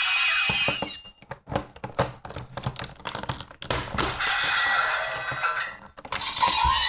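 Rapid plastic clicks and knocks from the DX Genesis Driver toy belt as it is handled and its handle is worked. With the gearbox removed there is no loud whirring. The belt's electronic sound effects play for the first second or so and start again near the end.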